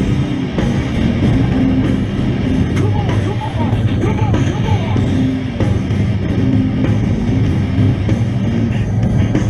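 Rock music soundtrack with guitar and drums, played steadily throughout.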